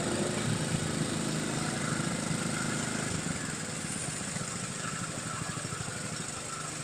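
Small engine of a well-drilling rig running steadily with a fast, even firing beat.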